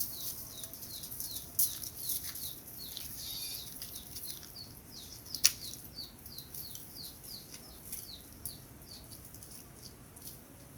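A small bird chirping over and over: short, high, falling chirps, about three a second, with a few sharp clicks among them, the loudest about halfway through.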